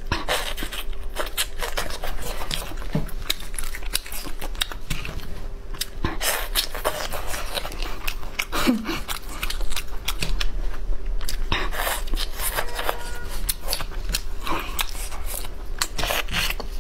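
Close-miked eating of boiled crayfish: shells cracking and peeling apart in gloved hands, with sucking and chewing at the mouth, many quick crackles and clicks.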